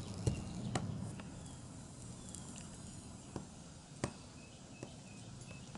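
Soldering iron held on a fluxed stained-glass frame joint: faint sizzle of the flux with scattered sharp crackling clicks as it spits and the 60/40 solder flows.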